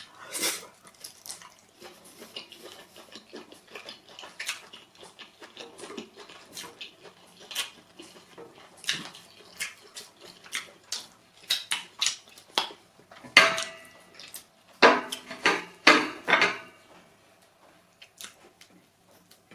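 Dishes and utensils clinking and knocking: a scatter of sharp clicks, with a louder run of knocks about two-thirds of the way through, one ringing briefly like a plate or bowl.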